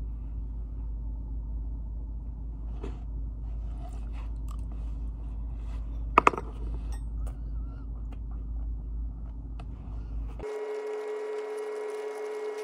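Steady low room hum with faint taps and clicks of chopsticks against a plastic food container during eating, and one sharp click about six seconds in. About two seconds before the end, the hum cuts off and a held tone of several stacked pitches, like a sustained music chord, begins.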